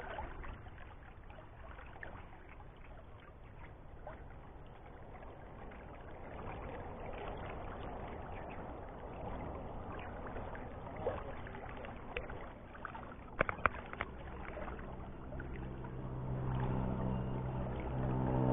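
River water swishing and lapping, with a few sharp clicks a little past two-thirds of the way through. From about 15 seconds in, a motor's engine hum comes in and grows louder, the loudest thing at the end.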